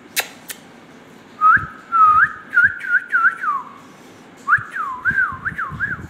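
Indian ringneck parakeet whistling two quick runs of clear up-and-down notes, the first about a second and a half in and the second near the end. Two sharp clicks come just before.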